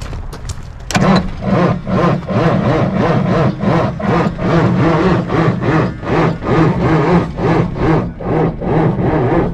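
Cummins 855 six-cylinder diesel cranking over on its starter without firing. It kicks in sharply about a second in and labours in an even rhythm of about three pulses a second. The crew puts the no-start down to dirt abrasion inside the combustion chambers.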